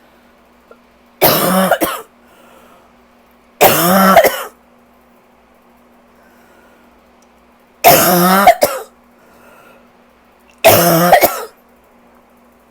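Four harsh bouts of coughing a few seconds apart, each under a second with a voiced, rasping edge: a rough allergy cough from a tight chest.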